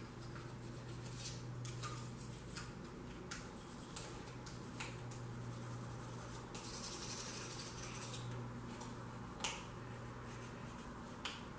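Short scraping and scratching strokes as carbon deposits are worked off the piston tops of a Nissan VQ35DE engine block, with a longer stretch of steady scrubbing a little past the middle. A steady low hum runs underneath.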